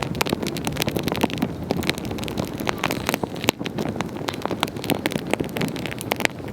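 Wood campfire burning: dense, irregular sharp crackles and pops, several a second, over a steady low rushing noise.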